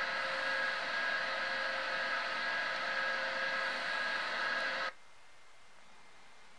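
A small electric motor whirring steadily with a fixed, slightly buzzing pitch, cutting off abruptly about five seconds in.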